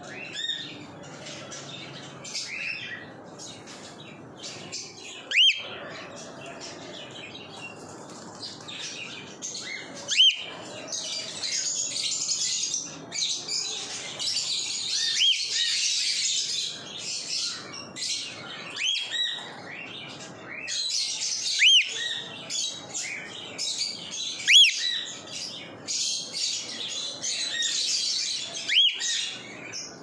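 Adult male cockatiel calling with short, sharp whistled calls that rise and fall, repeated every few seconds. A denser, higher chirping chatter runs beneath the calls at times, most of all in the middle and near the end.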